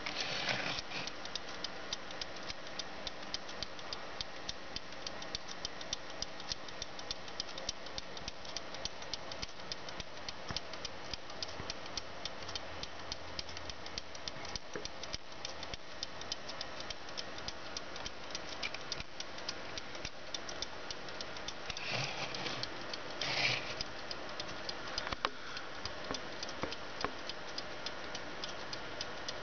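Corsar four-jewel mechanical alarm clock ticking with a rapid, even beat. A few short louder noises break in: about half a second in and twice near the end.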